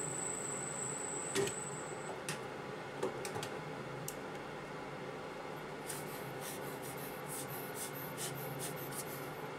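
Metal-turning lathe running with a high whine that stops about two seconds in, followed by a few light metallic clicks and then a run of short scratchy rubbing strokes as a hand works at the crankpin on the stopped lathe.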